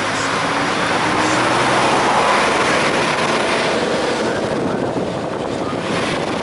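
Vintage open-top bus running uphill along a lane, with loud rushing wind and road noise over its engine, as a steam traction engine passes the other way.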